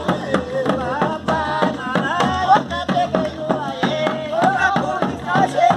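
Batuque folk music: singing over a quick, steady beat of percussion strikes.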